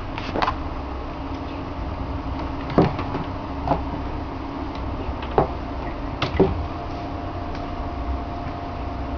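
A handful of short, sharp clicks and knocks, about six, scattered over a steady low hum.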